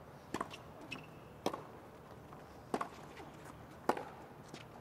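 Tennis ball hit back and forth with rackets in a rally opened by a serve: four sharp strikes about a second apart, with fainter ball bounces between.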